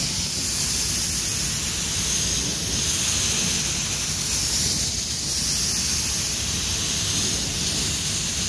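Gravity-feed automotive spray gun hissing steadily as it sprays clearcoat onto a car body panel.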